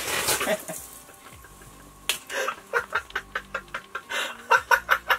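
A short noisy burst at the start. Then, from about two seconds in, a person cackles with laughter in quick, short pitched bursts, several a second, loudest near the end.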